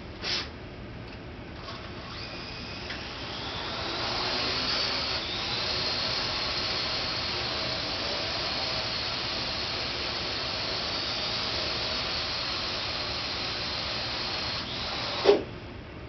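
Parrot AR.Drone 2.0 quadcopter's four electric rotors spinning up with a rising whine about two seconds in, then a steady high whine while it hovers. Near the end the whine drops away and the drone sets down on a plywood landing pad with a single sharp thud; a short click comes right at the start.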